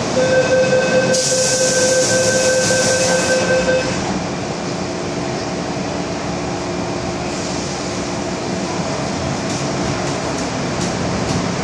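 MTR M-Train door-closing warning tone sounding steadily for about four seconds, with a hiss partway through as the doors close. Then the steady rumble and hum of the subway train.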